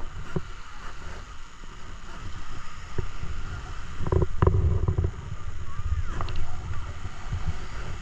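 Wind buffeting the camera microphone: an uneven low rumble that gusts louder about halfway through.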